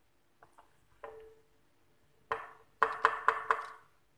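Knife blade chopping down through a round of bread dough and striking the baking tray beneath. A few light taps come first, then a quick run of about five sharp knocks in the second half.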